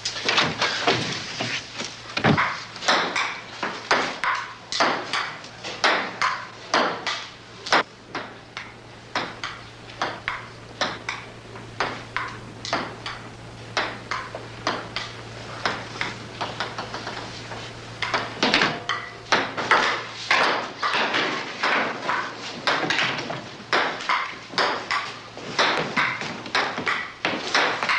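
A fast, irregular run of sharp taps and knocks, several a second, over a low steady hum that stops about two-thirds of the way through.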